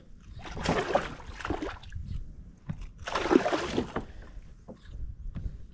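Water sloshing and splashing against a sit-on-top kayak's hull in two surges, with a few light knocks between them.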